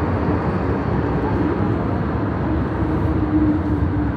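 MTR M-train electric multiple unit running at speed through a tunnel, heard from inside the car: a loud, steady rumble of wheels on rail, with a faint motor whine that rises slightly and then holds.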